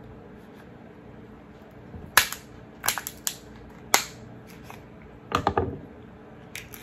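Alaskan king crab leg shell cracking as kitchen shears cut through it: a few sharp snaps spaced about a second apart, then a quick run of cracks and crunching near the end.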